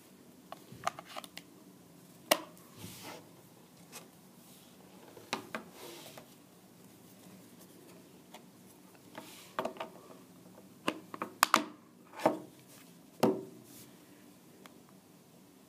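Scattered sharp plastic clicks and taps as a BlackBerry Bold 9900 is handled on a wooden desk: its battery is seated and its back parts clicked into place. The loudest clicks come in a quick cluster near the end.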